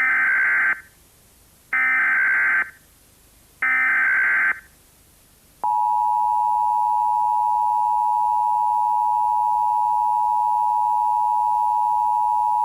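Emergency Alert System broadcast tones: three short bursts of the digital SAME header, each just under a second long and about two seconds apart. Then, a little under six seconds in, comes the steady two-tone EAS attention signal, which lasts about seven seconds. Together they announce that an emergency alert message follows.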